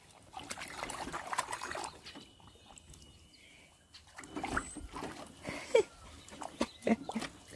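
Water splashing and sloshing in a plastic kiddie pool as a dog paws and noses through it after rocks, in short uneven bursts with a quieter stretch about two seconds in.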